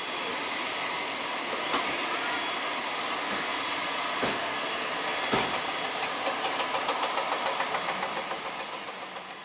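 Antonov An-12BK's four Ivchenko AI-20 turboprop engines running at climb power as the plane climbs away, a steady engine-and-propeller rumble. From about six seconds in it takes on a pulsing beat of about five a second, and it fades near the end. A few sharp clicks come about two, four and five seconds in.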